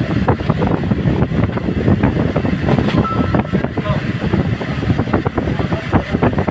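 Pedestal fan's air stream buffeting the phone's microphone: a loud, rough rumble with constant rapid flutter.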